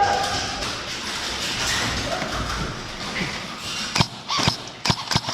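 A dull noisy hum, then from about four seconds in a quick, irregular series of sharp clicks, about two or three a second.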